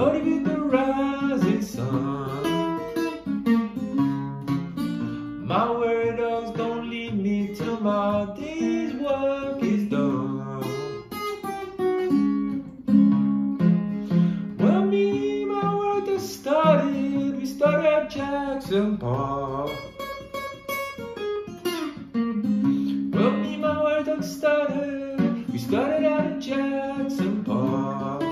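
A small-bodied acoustic guitar picked in a country blues style, with a man singing over parts of it.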